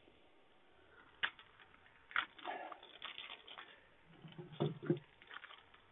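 Cellophane shrink-wrap being peeled and torn off a deck of playing cards: a sharp tick about a second in, then scattered crinkling and crackling of the thin plastic.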